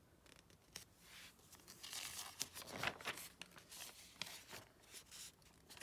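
Glossy magazine pages rustling and crinkling as a page is turned and pressed flat, in a run of irregular scrapes that is loudest about two to three seconds in.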